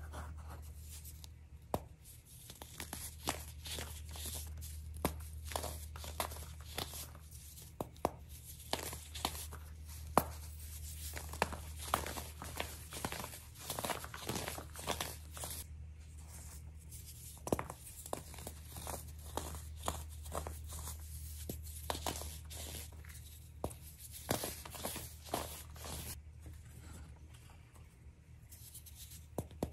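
Star-shaped blocks of pressed baking soda being squeezed and crumbled between the fingers: dense, irregular crunching and crackling with many sharp snaps, over a steady low hum.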